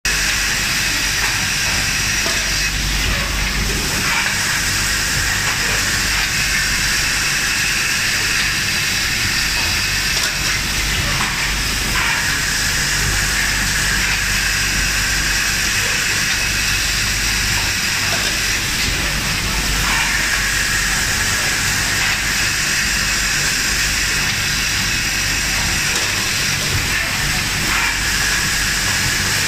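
A line of three-head automatic edge grinding machines for melamine tableware running, a steady hiss over a low hum, with a faint recurring sweep about every eight seconds.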